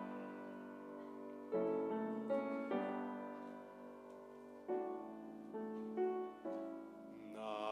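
Piano introduction to a choir anthem: slow, gentle chords, each struck and left to fade, about every second or so.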